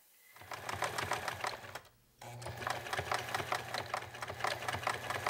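Electric sewing machine stitching fabric in two runs: rapid, even needle strokes over a steady motor hum, with a brief stop about two seconds in.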